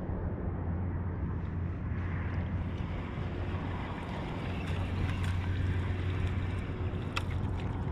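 Steady wind and lapping water on an open shallow flat, with a constant low hum underneath and a few faint clicks in the second half.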